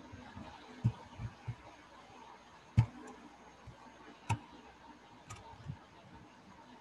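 Computer mouse clicking, a handful of sharp single clicks spaced a second or more apart, over faint steady hiss with a few soft low thumps.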